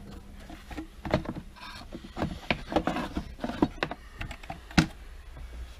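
Irregular wooden knocks and clicks from a wooden machinist's tool chest drawer being handled and opened, with one sharper knock near the end.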